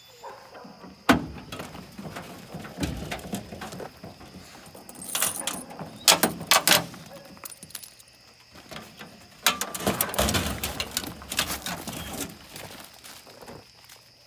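A pickup's tailgate unlatched and dropped open with one sharp clunk about a second in, then clusters of metal clicking and jingling from the aluminium dog box latches and a chain lead with its snaps as a coonhound is let out and leashed.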